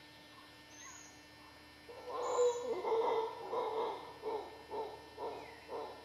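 Mantled howler monkey calling: a loud, deep call starts about two seconds in and breaks into a run of shorter calls, roughly two a second, that stop near the end.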